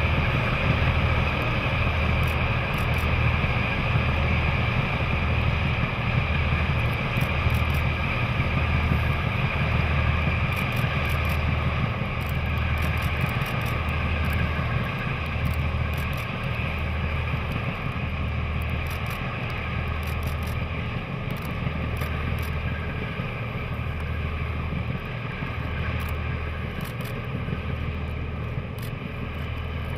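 DD14 rotary snow-plough locomotives working, their diesel engines and rotary snow blower running steadily. A low pulsing beat comes about once a second under a steady whine and the rush of thrown snow, fading a little near the end as the train draws away.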